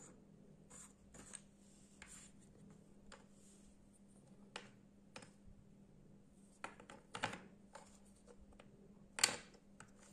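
Faint, scattered clicks and taps of wooden jigsaw puzzle pieces being handled and pressed together on a wooden tabletop. A quick run of taps comes about two-thirds of the way in, and the sharpest tap comes near the end as a piece is fitted into place.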